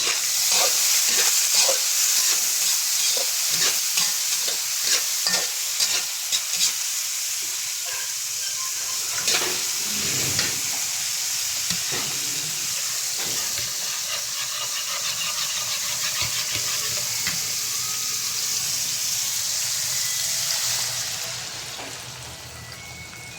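Food frying and sizzling in a hot pan while it is stirred, with a utensil knocking and scraping against the pan through the first several seconds. The sizzling drops off sharply near the end.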